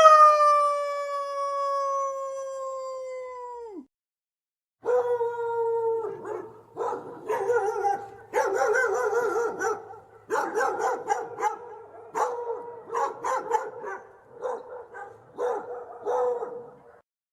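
Dog howling: one long held howl that sags slightly in pitch and cuts off about four seconds in, then after a short pause a second run of wavering howls broken into short phrases, stopping near the end.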